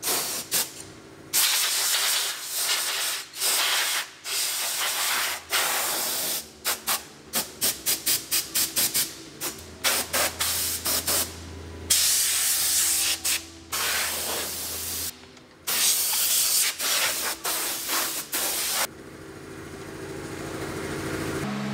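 Compressed-air blow gun firing blasts of air: several long hisses and a run of quick short bursts, about three a second, then quieter for the last few seconds. It is blowing debris out of the cowl water drains under the hood.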